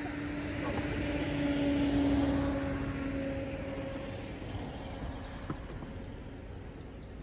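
A passing motor vehicle's engine hum, swelling to its loudest about two seconds in and then slowly fading away.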